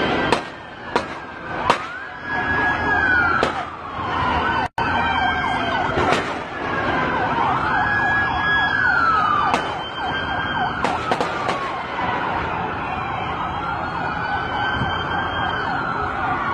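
Police car sirens wailing, slow rising and falling glides overlapping, with about nine sharp gunshots spaced irregularly through the first twelve seconds, three of them in quick succession after about eleven seconds.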